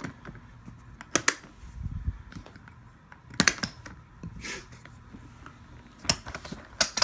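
Sharp clicks, mostly in pairs a couple of seconds apart, with some handling rustle and a low thud: the latches of a Gator hard-shell guitar case being snapped open.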